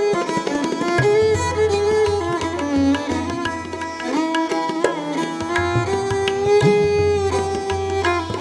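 Indian classical violin playing a raga melody that slides between notes, accompanied by tabla: crisp hand strokes on the small treble drum and deep, ringing strokes on the bass drum, one of which bends upward in pitch about two-thirds of the way through.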